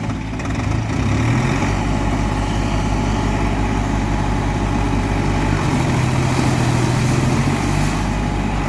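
Tractor diesel engine running steadily. Its pitch rises about a second in, and it revs higher again for a couple of seconds near the end.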